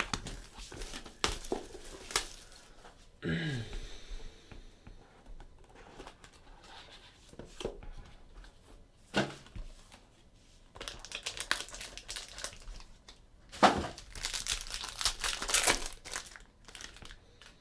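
Plastic packaging on a box of trading cards being torn open and crumpled by hand, in irregular bursts of crinkling that are densest and loudest in the last few seconds.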